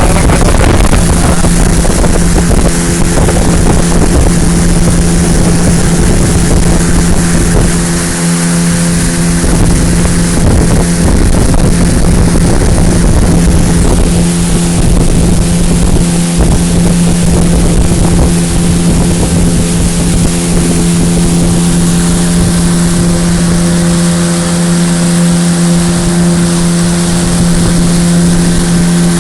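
A motorboat's engine running steadily at constant speed, its pitch holding level throughout, with wind noise on the microphone.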